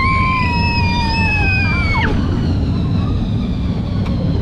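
A young child's high, held scream of excitement, rising at the start, holding for about two seconds and then dropping off, over the steady rumble and wind noise of a moving ride car.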